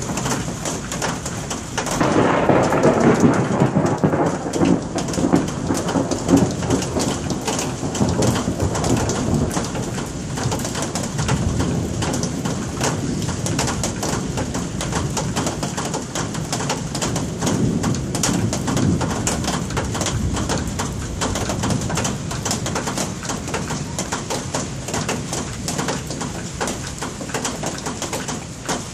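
Steady rain falling, with a long roll of thunder starting about two seconds in and rumbling away over several seconds. A second, weaker rumble comes a little past the middle.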